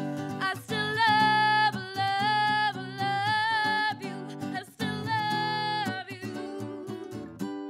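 Live acoustic pop song: a woman sings several long held notes with a slight waver, over a strummed acoustic guitar.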